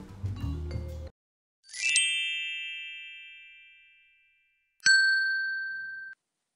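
Background music stops about a second in, followed by subscribe-button animation sound effects. First a quick swell into a bright chime that rings and slowly fades, then near the end a sharp click with a ding that cuts off abruptly.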